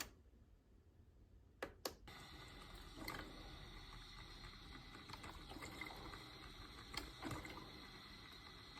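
Ninja DCM201 drip coffee maker brewing a water-only first cycle: faint, steady trickling and gurgling of hot water through the machine. Two sharp clicks come just before two seconds in.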